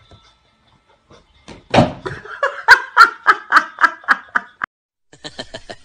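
A person laughing loudly in a quick run of ha-ha bursts, about three or four a second. It starts about a second and a half in and lasts about three seconds.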